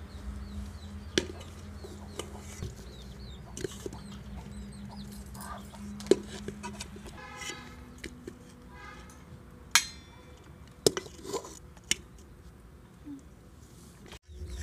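Steel serving spoon clinking against an aluminium pot and steel plates as rice is dished out: a handful of sharp metallic clinks, the loudest about six and ten seconds in. A hen clucks in a short run in the middle, with small birds chirping.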